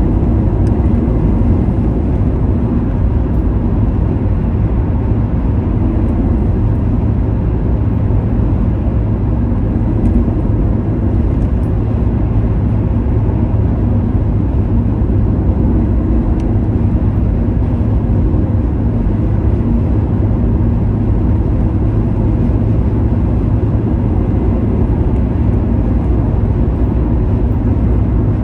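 Steady road noise inside a car cruising at motorway speed: an even, low rumble of tyres and engine, with no changes.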